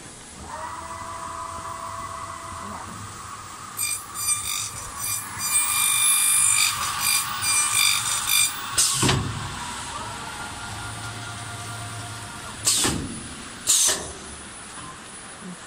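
CNC corner cleaning machine working on a welded uPVC window-frame corner: spindle motors whine steadily while the cutters clean off the weld seam, with a harsh high-pitched cutting noise for about four seconds. A thump and short sharp air hisses from the pneumatic tool heads follow, twice near the end.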